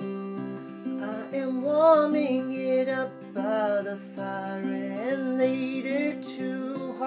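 Small-bodied acoustic parlor guitar, fingerpicked in a gentle song accompaniment, with a wavering melody line that bends in pitch riding above it.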